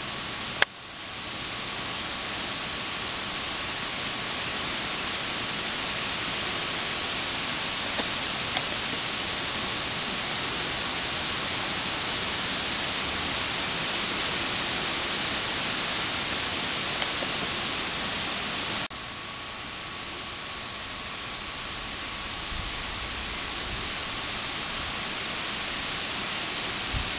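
Steady electronic hiss from the camcorder's microphone, with a faint constant high tone running under it. About a second in there is a sharp click and the hiss drops away, then swells slowly back; it steps down and creeps back up once more about two-thirds of the way through.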